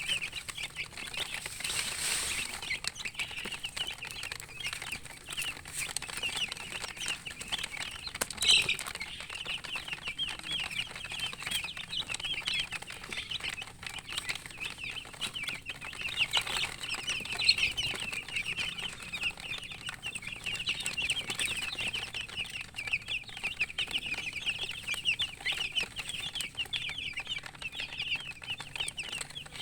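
A flock of baby chicks peeping nonstop, a dense chorus of short high chirps, with a brief louder burst about eight seconds in.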